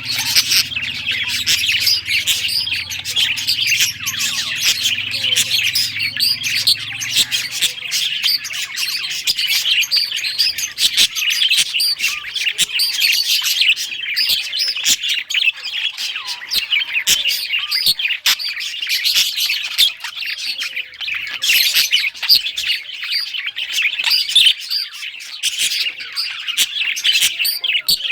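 A flock of budgies chattering and chirping without pause, a dense warble of many overlapping high chirps, with scattered small clicks among them.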